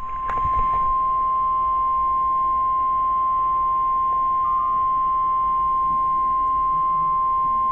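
NOAA Weather Radio warning alarm tone: one steady 1050 Hz tone held for about eight seconds over faint radio hiss, the signal that a warning broadcast is about to follow.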